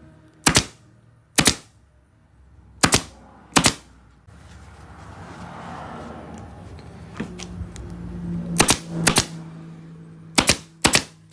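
Upholstery staple gun firing staples through fabric into a stool seat's edge: about eight sharp snaps, mostly in pairs, with a gap of a few seconds in the middle filled by soft rustling.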